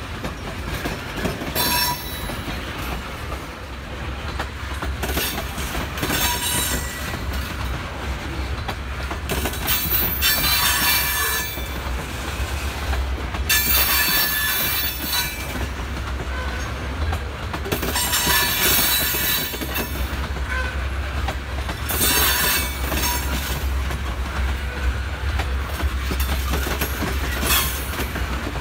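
Railroad cars rolling through a yard, steel wheels squealing against the rail in repeated high shrieks every few seconds over a low steady rumble.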